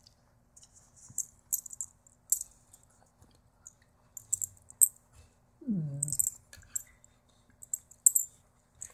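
Two German Shepherds play-fighting: jaws snapping and teeth clacking in quick sharp clicks throughout, with one short growl that falls in pitch about six seconds in.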